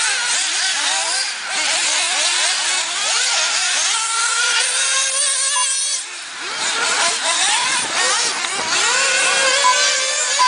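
Several 1/8-scale nitro RC buggies' small glow engines running at once, a high whine whose pitch keeps rising and falling as each buggy accelerates and backs off around the track. The sound dips briefly about six seconds in.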